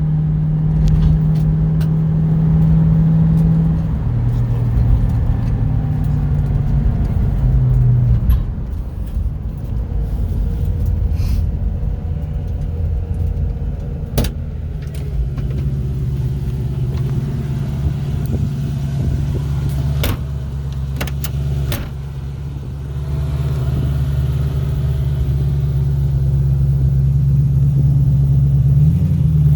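1993 Mustang GT 302 HO V8 with stainless headers and exhaust running under way on a drive. Its note steps down about four and eight seconds in, then climbs back and holds steady. A few sharp clicks come in between.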